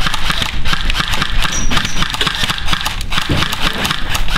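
Running footsteps on grass and the jostle of a handheld camera, with irregular knocks over a steady low rumble of wind on the microphone.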